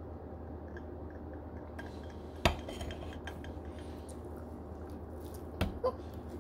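Tableware knocking on a table: one sharp knock about two and a half seconds in as a drinking tumbler is set down, a few light clicks after it, and two smaller taps near the end, the second with a brief ring.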